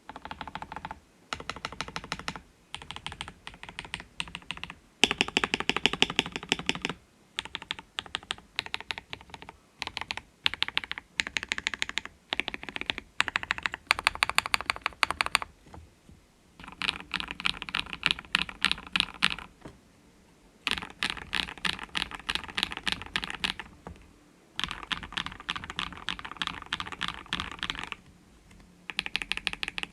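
Typing on a Kbd67 Lite mechanical keyboard with lubed Akko CS Radiant Red linear switches, a polycarbonate plate and PBT keycaps. The keystrokes come in quick runs of one to three seconds with short pauses between.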